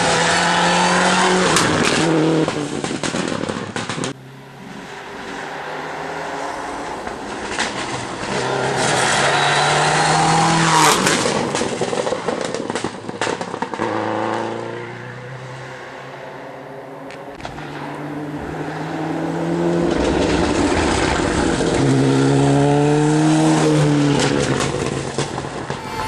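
Rally cars passing one after another on a tarmac stage, engines revving hard with the pitch rising and falling as they brake, change gear and accelerate out of the bend. The sound drops sharply about four seconds in, then builds again with each car that comes through.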